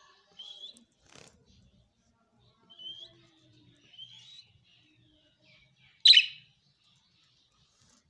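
Budgerigars chirping: a few short rising chirps, then one much louder, harsher squawk about six seconds in.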